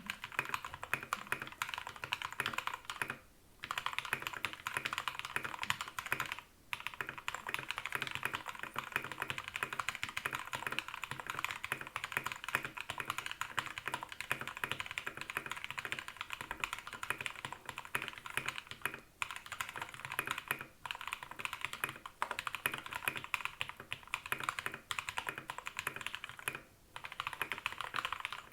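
Continuous fast typing on a modded RK61 mechanical keyboard with red linear switches: a dense run of keystrokes that stops briefly a few times.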